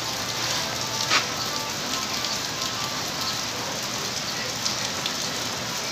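Steady rain falling on the street, an even hiss, with one short sharp click about a second in.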